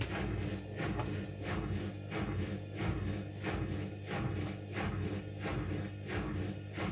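Front-loading washing machine (1200 rpm, 6 kg) turning its drum with water and laundry inside: a steady motor hum under a swish that repeats about every two-thirds of a second as the wash sloshes around, a wash or rinse tumble before the spin.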